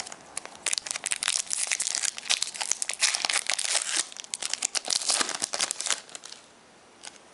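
Foil wrapper of a Pokémon Next Destinies booster pack being torn open and crinkled by hand, a dense run of crackles that stops about six seconds in.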